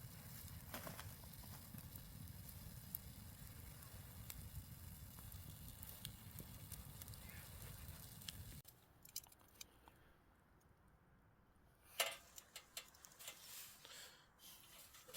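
Wood campfire burning with faint, scattered crackles and pops. The fire sound cuts off suddenly about eight and a half seconds in, leaving only a few scattered clicks and one louder knock near twelve seconds.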